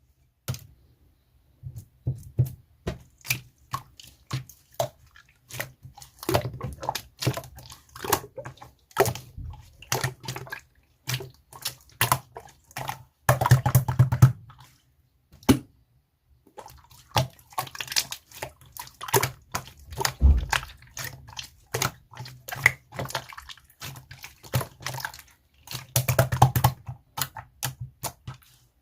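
Clear slime being squeezed, poked and stretched by hand, giving irregular wet, sticky clicks and pops with denser squelching clusters.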